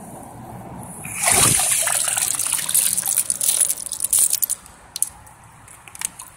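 Water splashing and trickling: a loud wash of moving water with many small drips starts about a second in, lasts some three seconds, then dies down to a faint hiss.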